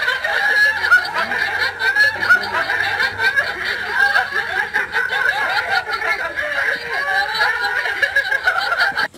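Several people laughing hard and without a break; the laughter cuts off abruptly near the end.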